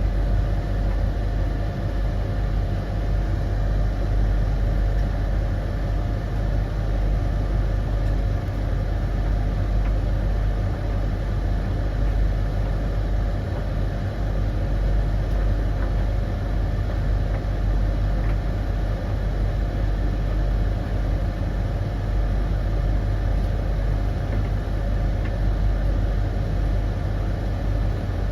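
Three tumble dryers running together mid-cycle: a steady mechanical hum with a constant low drone and a fainter steady whine, with no change in level.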